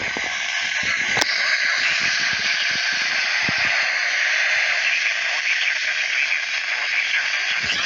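Radio static: a steady hiss from a radio receiver with no programme on the channel, with a sharp click about a second in.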